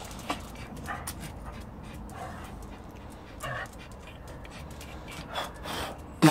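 Chihuahua whimpering in short, thin cries every second or so, with a much louder short sound right at the end.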